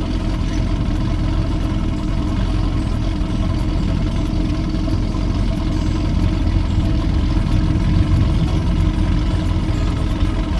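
Outboard motor of a 1978 Ranger bass boat running steadily at low speed.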